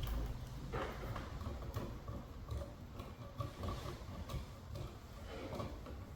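Light irregular clicks and handling noise of hands twisting wire nuts onto a smoke detector's wire splices, over a low steady hum.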